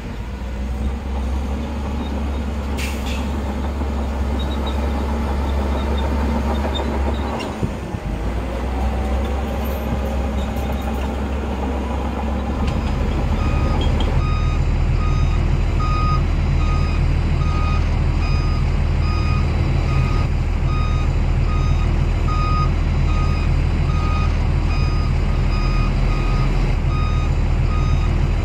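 Heavy diesel earthmoving machinery running steadily. About halfway through, a reversing alarm starts beeping about once a second as a dump truck or bulldozer backs up.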